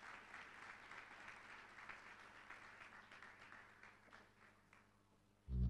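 Audience applause, faint, dying away over about five seconds. Music starts abruptly at the very end.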